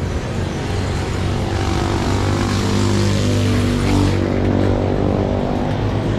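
Suzuki Smash 115's single-cylinder four-stroke engine running, with wind hiss on the microphone. The hiss eases about four seconds in while the engine hum carries on.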